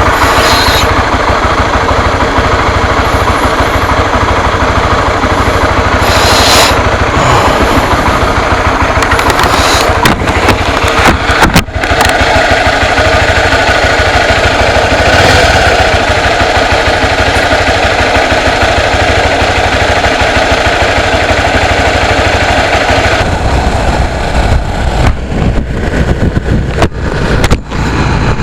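Honda CB150 motorcycle's single-cylinder engine running close to the microphone: a loud, even run of rapid exhaust pulses. A few sharp knocks about ten seconds in and again near the end.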